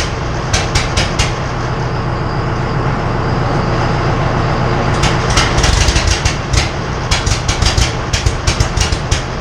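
John Deere diesel tractor engine running without its exhaust stack, a steady low rumble with irregular sharp clicks over it, briefly louder about five seconds in.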